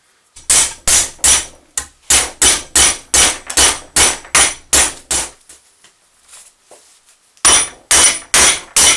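Hammer blows on an eighth-inch-thick steel flat bar clamped in a bench vise, bending a return angle into its end. A run of about a dozen strikes at roughly three a second, a pause of about two seconds, then four more strikes near the end with a high metallic ring.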